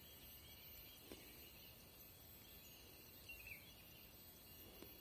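Near silence: faint forest ambience with a soft high insect hum, a faint click about a second in and a short chirp about three and a half seconds in.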